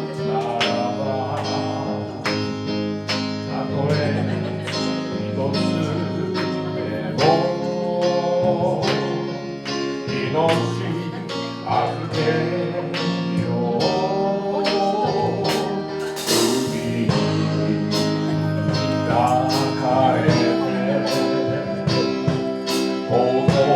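Live band music: guitar and sustained chords over a steady drum beat, with a wavering melody line that comes and goes and a cymbal crash about sixteen seconds in.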